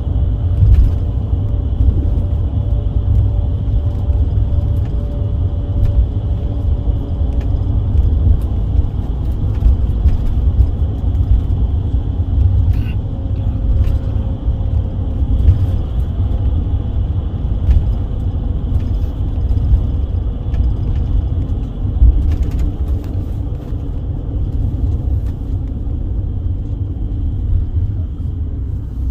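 Steady low road and engine rumble heard from inside a moving vehicle on the road, with a few light clicks and rattles.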